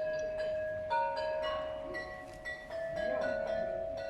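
Meissen porcelain bells of a carillon struck from outside by plastic hammers, playing a melody: clear notes struck about two a second, each ringing on under the next.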